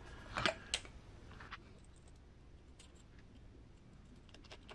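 A few small clicks and taps from handling an RC truck's shock absorber parts, two sharp ones within the first second and a few faint ones near the end, with low room tone between.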